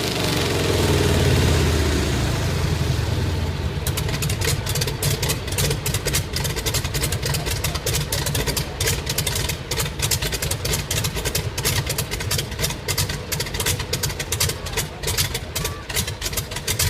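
Rolls-Royce Merlin V12 aero engine running at higher power, then throttled back about four seconds in to a rough idle with a rapid, uneven crackle of exhaust pops.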